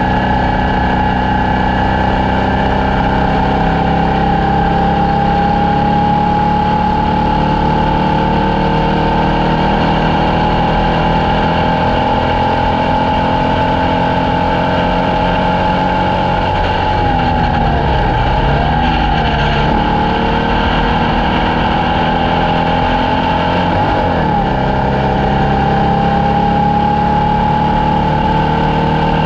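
Formula Vee race car's air-cooled Volkswagen flat-four engine running hard at high revs, its pitch climbing slowly. About 17 seconds in the revs fall and climb back twice in quick succession, dip briefly again near 24 seconds, then rise steadily once more.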